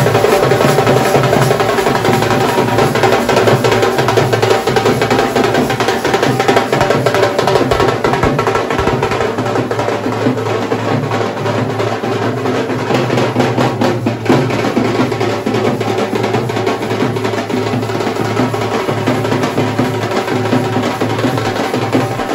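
Continuous stick drumming on a large strapped double-headed drum and a smaller drum beaten with thin sticks, keeping up a busy, unbroken rhythm.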